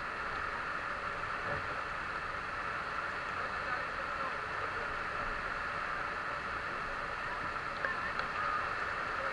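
Steady rushing noise of wind-driven rain and spray around a small wooden outrigger boat, with a few light knocks near the end.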